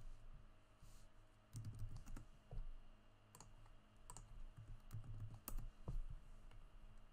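Computer keyboard keys and mouse buttons clicking: several separate taps, about a second apart, as a number is typed in on the numpad.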